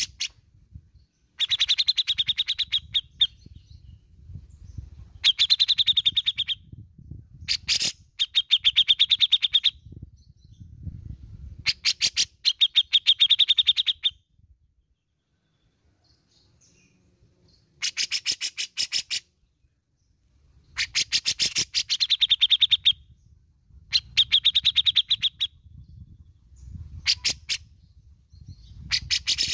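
Grey-cheeked bulbul (cucak jenggot) calling in repeated harsh, rattling phrases, the besetan calls. Each phrase is a fast string of sharp notes lasting one to two seconds, with short pauses between phrases.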